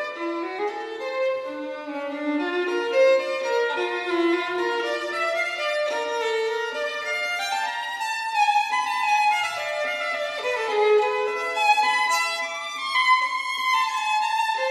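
Background music: a violin playing a flowing melody of held notes.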